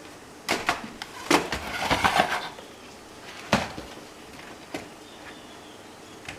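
Handling of computer cables and connectors: a run of clicks and rattles from about half a second to two and a half seconds in, then one sharp click about a second later and a few faint ticks, over a faint steady hiss.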